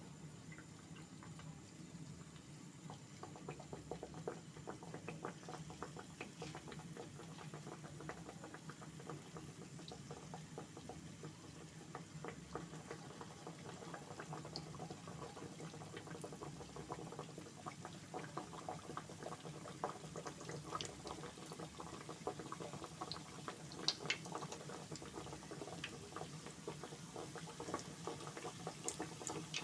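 Small mandazi dough pieces deep-frying in hot oil, sizzling with dense crackling pops that pick up a few seconds in, over a steady low hum.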